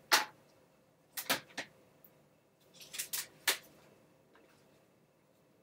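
Handling noises as a replacement laptop screen panel is picked up and moved: a few sharp clicks and knocks in three small clusters, then quiet.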